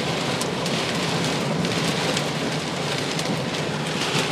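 Heavy rain beating on a car's roof and windows, heard from inside the car: a dense, steady hiss full of sharp taps.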